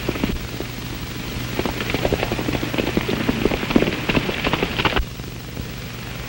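Horses' hooves galloping on a dirt trail, a dense patter of beats growing louder as two riders come near and pass. The beats cut off suddenly about five seconds in, leaving the steady hiss and hum of an old film soundtrack.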